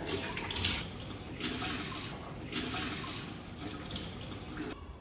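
Kitchen tap running into a stainless-steel sink, water splashing as it is used; the sound cuts off abruptly near the end.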